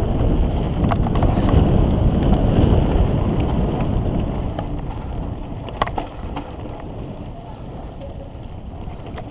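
Mountain bike rolling fast down a dirt singletrack: wind buffeting the microphone, tyres on loose dirt and the bike rattling over the trail, with a sharp click about six seconds in. The rush is loudest for the first four seconds, then eases off.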